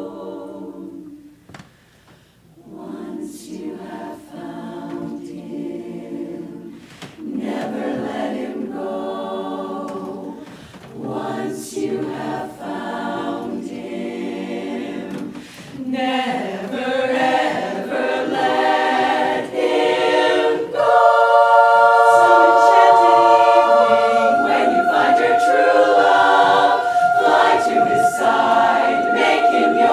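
Women's barbershop chorus singing a cappella in close harmony. The phrases grow louder about halfway through and end on long, ringing held chords.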